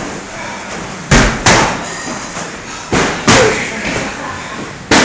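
A series of sharp knocks and thuds, five in all, mostly in quick pairs about a third of a second apart.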